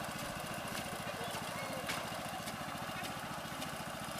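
Small engine of a rice transplanter running steadily at an even speed.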